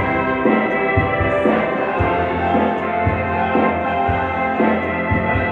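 Live band music: an electric bass and drums keep a steady beat of about two strokes a second, with held notes sounding above them.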